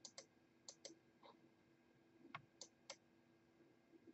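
Faint computer mouse clicks, about seven in the first three seconds, several coming in quick pairs, as an answer button and a submit button are clicked.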